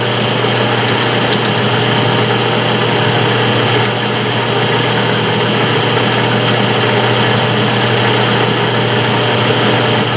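Metal lathe running steadily under power, its motor and geared headstock giving an even hum with the carriage driven along the leadscrew in the threading feed.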